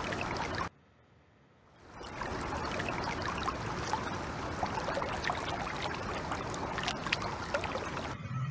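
Recording of water flowing: a steady rushing hiss that breaks off for about a second early on, starts again and runs until it cuts off suddenly near the end.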